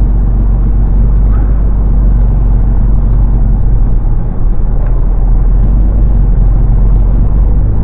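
A motor engine running steadily, with a loud low hum.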